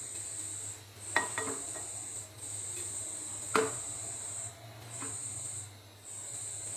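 Hot oil sizzling with a steady high hiss around browned, fried sliced onions in a nonstick karahi, dropping out briefly a few times. A silicone spatula lifts the onions out, with light knocks against the pan or bowl about a second in and again about three and a half seconds in.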